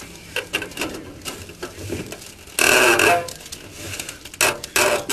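Clicks, knocks and rustling of a race-car driver working to unhook himself from the car's harness and connections, with a loud scrape about two and a half seconds in and two more loud knocks near the end.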